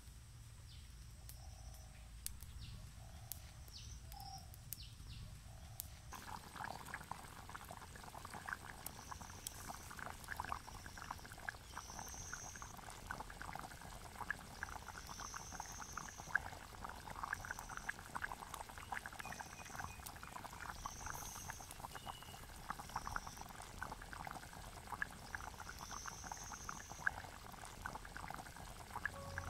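Fish curry simmering in a pot over a wood fire: a dense, fast bubbling of tiny pops that starts about six seconds in. Short high calls from an animal repeat every second or two over it.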